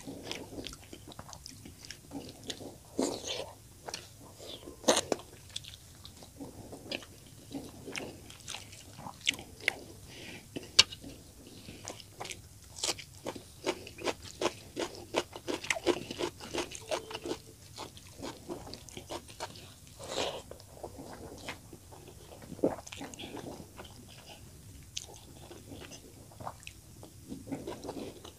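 Close-miked chewing of a mouthful of fish curry and steamed rice, eaten by hand: many quick, irregular wet clicks and smacks of the mouth.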